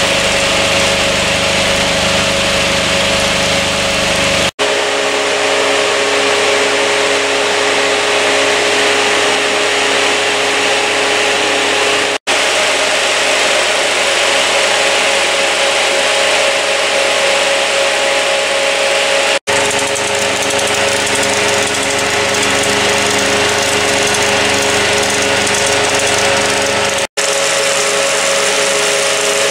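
A Bauer P5 16mm film projector and a motor-driven Nipkow scanning disk running together in a mechanical telecine: a steady mechanical whir with a constant hum. The sound drops out for an instant four times, about every seven to eight seconds, where the recording is cut.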